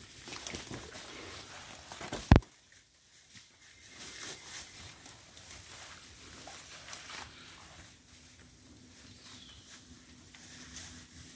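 Hikers' footsteps and the rustling of wet jungle undergrowth as they climb and pull at plants, with one sharp knock about two seconds in.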